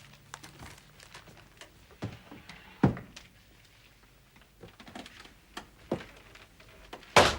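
Scattered light taps and knocks in a small quiet room, with sharp knocks about two and three seconds in and a louder thump near the end.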